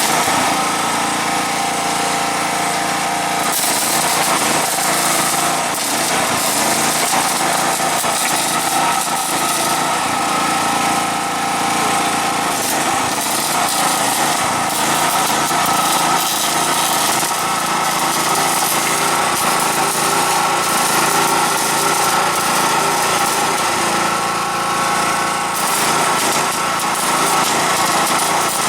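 A small engine running steadily under a constant hiss.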